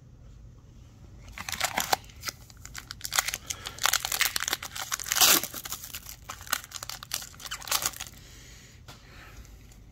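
The foil wrapper of a 2020-21 Upper Deck Series 2 hockey card pack being torn open by hand, crinkling and ripping for about six seconds, loudest around the middle.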